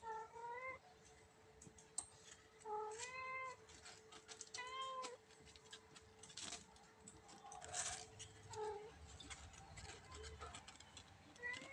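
A kitten meowing several times, in short high-pitched meows a second or two apart, over a faint steady hum.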